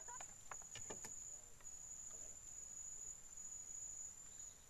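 Faint, steady high-pitched drone of insects from the riverside vegetation, with a few faint ticks in the first second.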